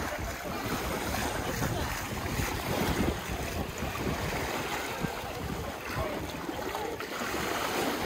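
Sea water washing and lapping at the shore, with wind buffeting the microphone in gusts.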